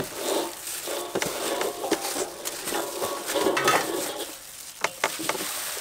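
Shredded cabbage sliding and rustling off a metal tray into a stainless steel mixing bowl, with a few clinks of the tray against the bowl.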